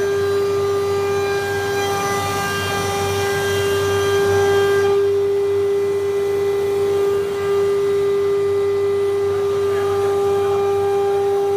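CNC nesting router spindle running with a steady high whine, over a hiss that drops away about five seconds in.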